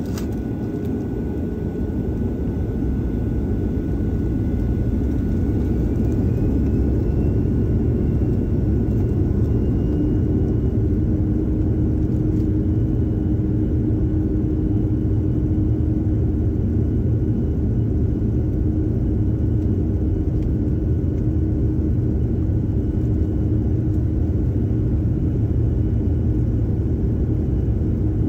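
Jet airliner's turbofan engines spooling up on the takeoff roll, heard from inside the cabin: a loud, steady rumble that swells over the first several seconds and then holds, with a faint whine rising in pitch a few seconds in.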